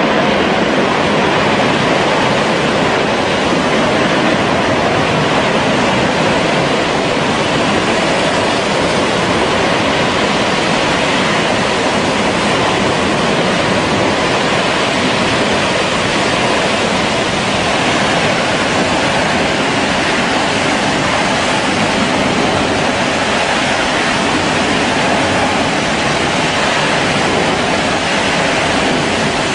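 Burning blowout at a drilling rig: gas and flame jetting from the wellhead with a loud, steady rushing roar.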